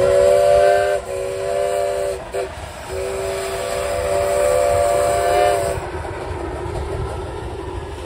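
Chime steam whistle of a miniature live-steam locomotive, several notes sounding at once. It is blown four times: two blasts of about a second each, a brief toot, then a long blast of about three seconds. Train running noise rumbles low underneath.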